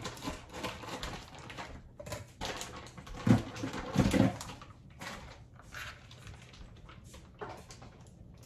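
Plastic bag crinkling and rustling as it is cut open with scissors and handled, with two louder knocks about three and four seconds in.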